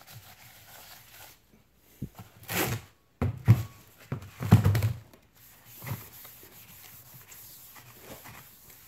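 Paper towel rubbing over a new cast-iron brake rotor to wipe off its protective oil, with several dull thuds and cardboard rustling around the middle as the heavy rotor is lifted, turned over and set back down in its box.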